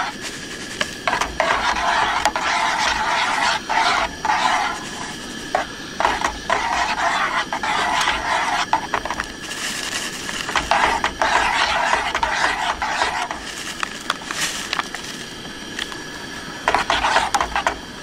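A metal spoon stirring and scraping around a small metal camp cook pot, in several spells of a few seconds each, as instant mashed potatoes are mixed into boiling water. A steady hiss from the propane camp-stove burner runs underneath.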